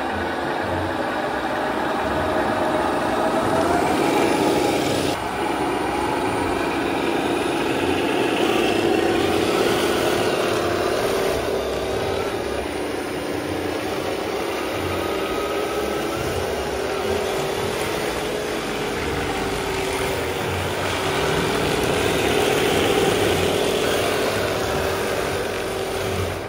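Tongde 1/16-scale M60A3 RC tank driving across a hardwood floor. Its electric drive motors and gearboxes whine over a steady drone, the pitch rising and falling as it changes speed.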